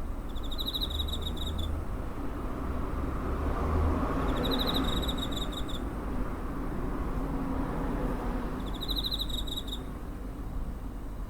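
Cricket chirping: three trills of rapid pulses, each about a second long and about four seconds apart. A broad rushing noise swells and fades in the middle.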